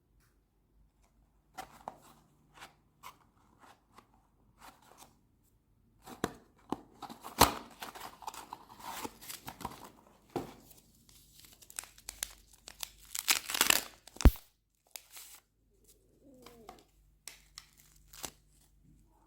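Crinkling and tearing of packaging being handled, in two busy stretches with scattered light clicks between them and a couple of sharp taps.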